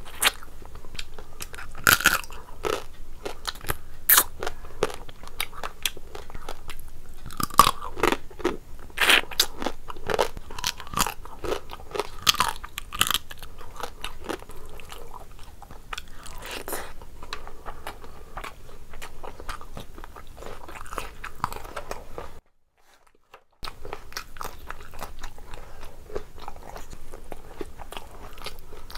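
Close-miked eating sounds: a person biting, crunching and chewing mouthfuls of rice and curry eaten by hand, with irregular sharp crunches and wet mouth clicks. About three-quarters of the way through, the sound cuts out to silence for about a second, then the chewing resumes.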